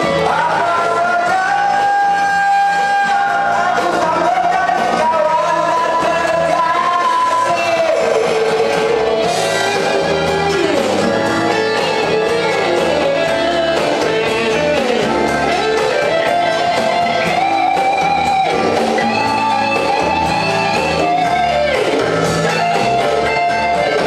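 A man singing into a handheld microphone through a PA, over backing music with guitar.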